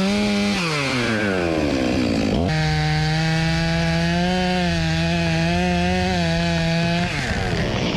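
Chainsaw at full throttle cutting sycamore. Its pitch falls as the throttle is let off about half a second in, and the saw snaps back to full speed about two and a half seconds in. It holds there and is let off again near the end, the pitch falling away.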